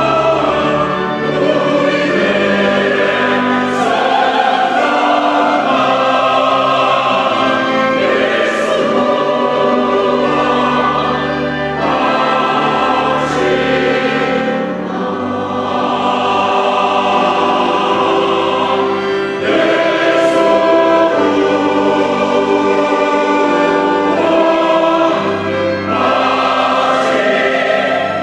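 Church choir singing a sacred anthem in sustained, full harmony, with phrases swelling and easing every few seconds.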